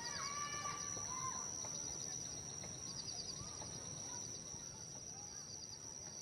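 Birds calling and chirping, most in the first second and a half, with clusters of quick high chirps over a steady high-pitched whine and a low background hiss.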